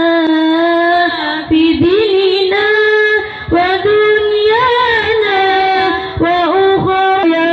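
Girls' voices chanting an Arabic devotional text in a slow melody, with long held notes that bend between pitches and short pauses between phrases.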